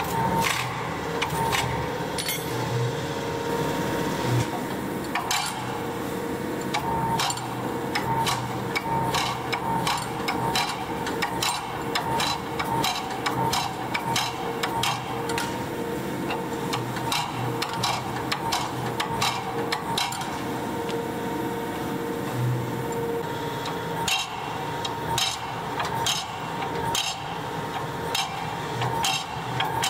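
Power hammer striking a glowing hot steel axe head in quick, uneven strings of blows, over the steady hum of the running machine.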